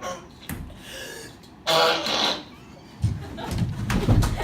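A person's voice in short wordless sounds, the loudest a brief burst about two seconds in, then low rumbling from about three seconds in.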